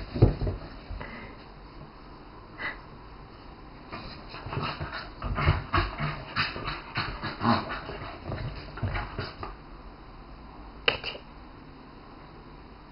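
A Scottish Terrier puppy gnawing on a chew stick: a run of short, irregular clicks and crackles, most of them in the middle stretch, with one sharp click about eleven seconds in.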